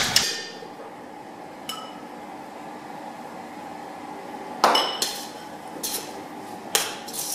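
Stainless steel bowls and utensils clanking on a steel kitchen counter: a clang at the start, a light ringing tap about two seconds in, and a sharp metallic knock with ringing about two-thirds through, followed by a few lighter knocks.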